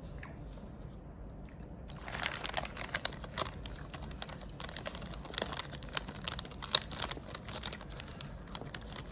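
Chocolate bar wrapper crinkling and crackling as it is handled, starting about two seconds in and going on in irregular sharp crackles.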